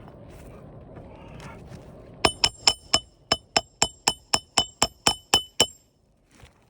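Hand hammer driving a roofing nail into an asphalt shingle. About two seconds in come roughly fourteen quick ringing metal strikes, about four a second, which stop before the end.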